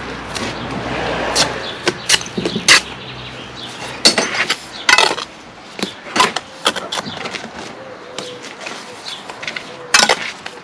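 Steel brick trowel spreading and scraping mortar along the top of concrete blocks, then a run of sharp, irregular taps and knocks of the trowel on block and mortar.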